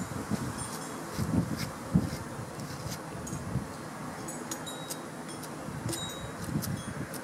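Soft rustles and light bumps of a slicker brush being worked through a small dog's shaggy, tangled coat, over a steady faint buzzing hum and a few light high clicks.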